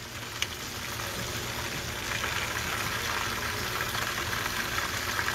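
Porgies frying in hot oil: a steady sizzle that grows a little louder over the first couple of seconds, with one small click about half a second in.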